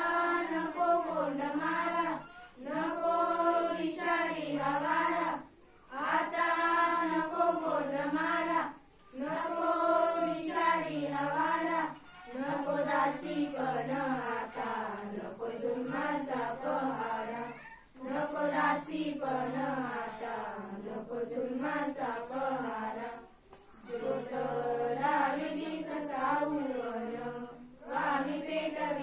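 A group of schoolgirls singing a Marathi awareness song (prabodhan geet) together in unison, without instruments. They sing in phrases a few seconds long, with short breaks between them.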